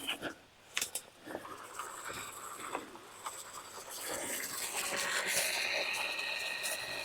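Tall dry weeds and rye rustling and scraping against a person wading through them. From about four seconds in, a steady high-pitched hum joins.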